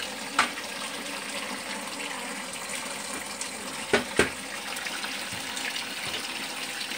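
Water running steadily, with a few sharp knocks: one about half a second in and two close together around four seconds in.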